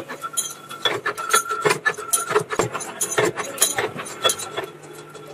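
Steel wrench rods and parts clinking and knocking against metal, about two to three sharp metallic hits a second over a faint steady machine hum, dying down near the end.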